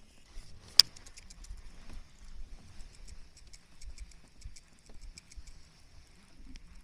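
Baitcasting reel being cranked to wind in line: one sharp click about a second in, then light, fairly regular ticking from the reel as the handle turns, over faint low handling rumble.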